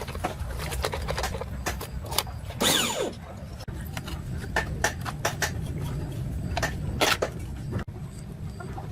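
Small motorbike engine running steadily, with sharp metallic clicks and knocks on top and a short falling squeal about three seconds in.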